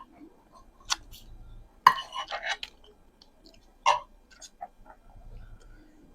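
Eating noises: a few sharp clicks and clinks, the loudest about two seconds in, with mouth and chewing sounds between.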